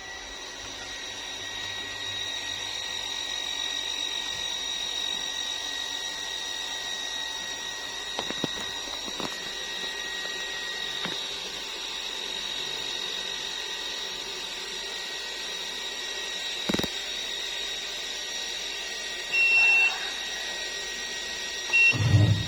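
Polytron washing machine running with a steady motor whine, with a few clicks along the way and two short high beeps near the end.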